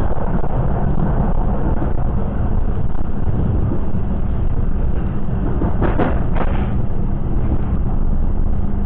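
Steady low rumble of a moving train heard inside a stainless-steel passenger carriage, with a constant hum, and two short sharp clacks about six seconds in.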